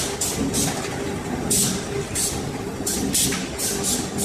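Charcoal briquette rod extruding machines running: a steady machine hum with a held tone, over which short hisses come repeatedly at an uneven pace.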